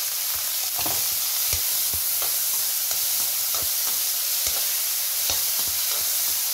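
Chopped shallots, garlic and dried red chillies sizzling in hot oil in a kadai, being lightly sautéed. A steel slotted spatula scrapes and taps against the pan at irregular intervals as the mix is stirred.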